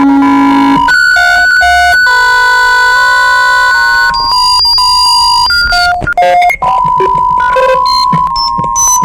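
Loud emergency-alert-style alarm made of synthesized electronic tones: steady beeps held for a second or more, switching between a few pitches, then breaking into quick, choppy notes in the second half.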